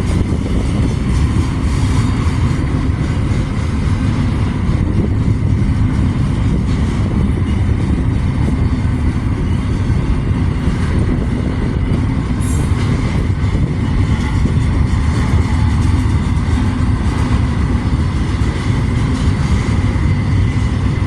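CSX freight train's cars rolling past: a loud, steady rumble of wheels on rail, with a faint thin high tone held above it.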